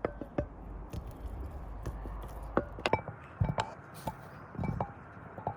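Knife slicing a ripe plantain on a chopping board: irregular taps and knocks, a few with a light clink.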